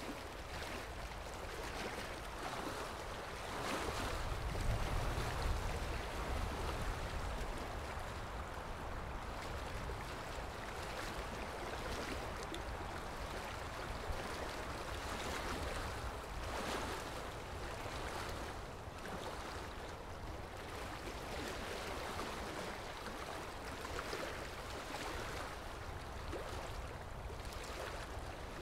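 Steady rushing water sound, a little louder with more low rumble about four to six seconds in.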